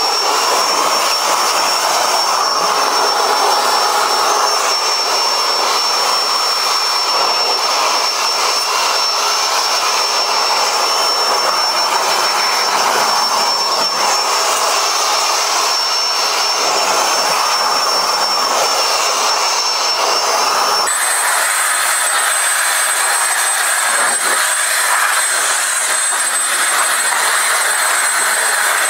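Handheld leaf blower running steadily, blowing air over a freshly washed car to dry it: a loud rush of air with a high whine that jumps higher in pitch about two-thirds of the way through.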